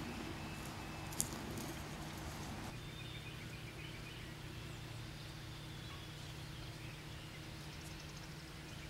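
Faint outdoor field ambience: a steady low hum and light hiss, with one sharp click about a second in. The hiss thins slightly about three seconds in.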